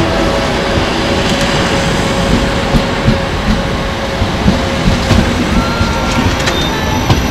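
Passenger train coaches rolling past close by: a steady rumble of wheels on rails, with irregular knocks as the wheelsets run over the track.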